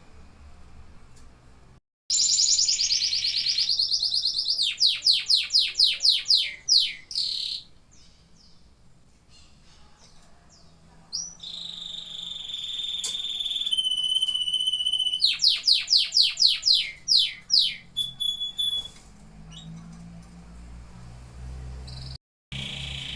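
Domestic canary singing: a buzzy high trill starts about two seconds in, then runs of rapid sweeping notes, then held rolling tones, then another run of sweeping notes, with quieter gaps between the phrases. The sound drops out completely for a moment about two seconds in and again near the end.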